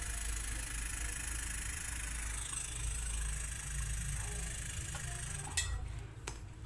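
New refrigerator inverter compressor running on a test before installation: a steady low hum with a high whine over it, showing the compressor works. About five and a half seconds in there is a click and the running stops.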